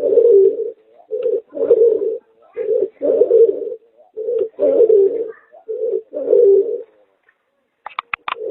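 Pigeon and Barbary dove hybrid (merpater) cooing: repeated low coo phrases, each a short note then a longer one, about one phrase every second and a quarter. A brief run of sharp clicks or taps comes near the end.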